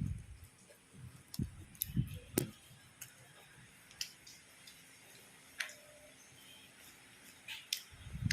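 Faint mouth clicks and a few soft chewing thuds from someone eating fried lumpia and fries, between bigger bites.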